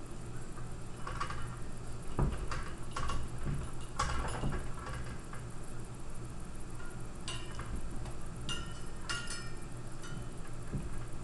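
Scattered light clicks and clinks, some with a short metallic ring, as a Yorkshire terrier moves about behind a metal pet gate on a tile floor. The clicks come in two clusters, over a steady low hum.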